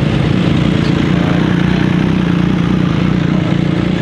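Ferrari supercar engine running at low, steady revs as the car rolls slowly by: a continuous low engine note with no revving.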